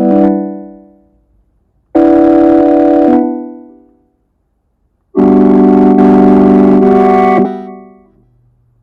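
Organ-like synthesizer chords played on the P_4L II Max for Live synth plugin: a chord fades out, then two more held chords, about a second and a half and about two seconds long, each fading out over about a second, with silence between them.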